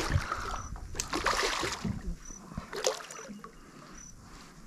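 Intermittent splashes and sharp knocks around a small fishing boat, growing quieter after about three seconds. A faint, short, high chirp repeats about every second and a half.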